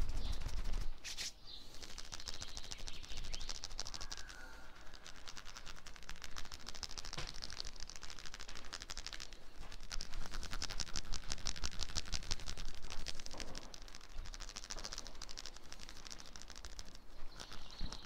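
Hands massaging skin in a fast, continuous run of soft taps and rubbing strokes, with a sharper slap about a second in.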